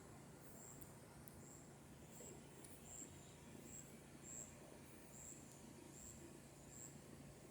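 Faint insect chirping, short high-pitched chirps repeating evenly about three times every two seconds, over a faint steady low hum; no thunder is heard.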